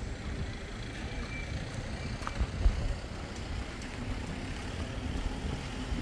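Wind buffeting the microphone: an uneven low rumble that rises and falls in gusts, with one stronger thump about halfway through.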